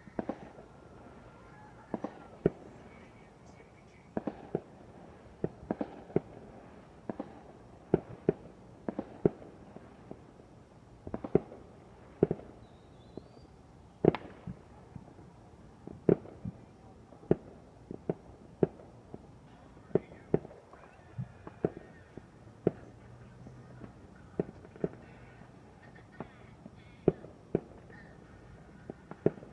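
Fireworks going off: a long run of single sharp bangs at uneven intervals, roughly one or two a second.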